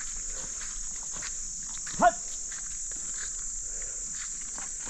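A goat gives one short bleat about two seconds in, over a steady high-pitched drone of insects.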